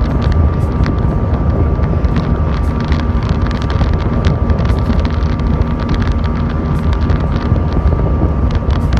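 Small boat under way at speed: loud wind buffeting the microphone over the steady drone of the boat's motor.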